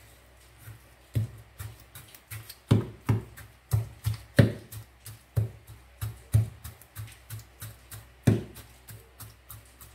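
Kitchen knife scoring slits in a raw turkey leg, its blade knocking through onto a wooden cutting board. The knocks come quickly, two or three a second, starting about a second in.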